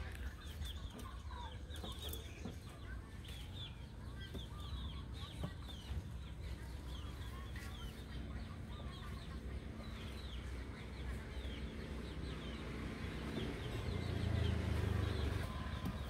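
Many short, high chirps from birds in and around a backyard aviary, repeating irregularly over a steady low rumble that grows louder near the end.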